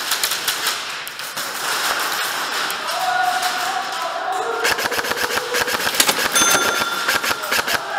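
Airsoft guns firing: rapid sharp clicks and snaps, much denser from about halfway through.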